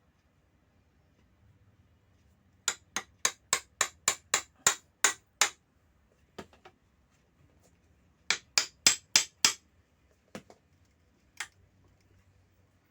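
Runs of sharp clicks or knocks, about three a second: a string of about ten, a few single ones, then five more, made while working open tightly sealed packaging.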